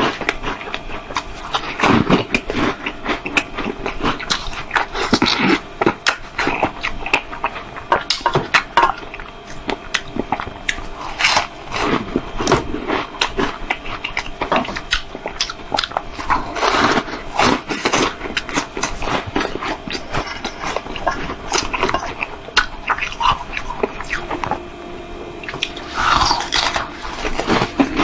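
Ice being bitten and chewed: repeated crisp crunches and crackles in irregular clusters, with louder spells of crunching every few seconds.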